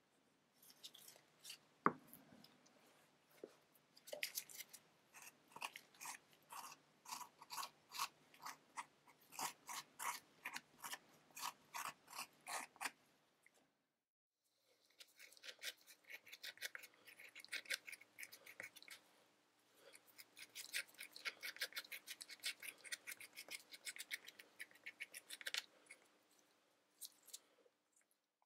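A small piece of card scraping and dabbing thick intaglio ink across an acrylic (Perspex) drypoint plate in repeated short strokes, about two a second at first, then quicker and denser after a brief pause about halfway. A sharp tap about two seconds in is the loudest sound.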